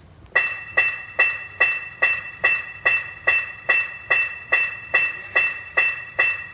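A metal percussion instrument struck in a steady beat, about two and a half strikes a second, each strike ringing briefly on a bright high pitch.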